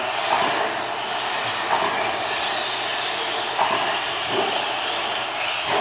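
Electric RC stadium trucks racing on a dirt track: a steady high whirr and hiss of motors, gears and tyres, with brief motor whines now and then as they throttle up.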